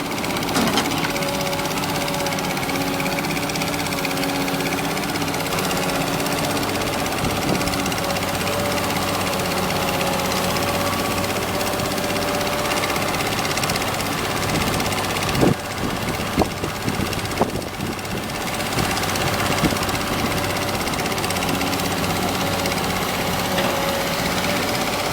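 Caterpillar 320D excavator's diesel engine running steadily at working speed, with a few sharp knocks about fifteen to eighteen seconds in.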